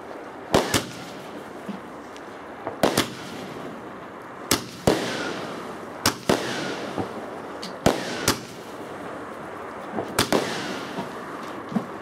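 Fireworks going off in a steady series: sharp bangs, mostly in close pairs, about every one and a half to two seconds, each followed by a fading crackling hiss.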